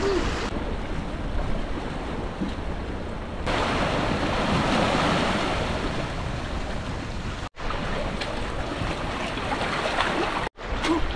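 Sea waves washing and surging along the shore, with wind rumbling on the microphone. The sound changes abruptly a few times and drops out briefly twice.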